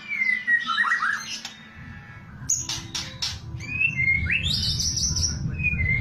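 White-rumped shama (murai batu) singing: varied whistled notes and quick rising sweeps, with a short run of sharp clicking rattle notes (kretekan) around the middle. A low background hum sets in about two seconds in.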